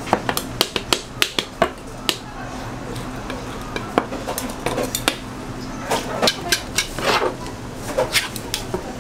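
Long flat metal spatula blades tapping and scraping on a plastic cutting board and against each other while fish-cake paste is spread, cut and rolled. There is a quick run of sharp clicks, then quieter scraping, then another cluster of clicks and scrapes near the end, over a steady low hum.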